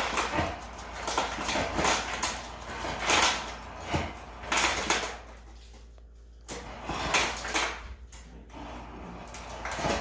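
Kitchen handling noises: a series of short scraping and rustling sounds about a second apart, with a quieter pause about midway.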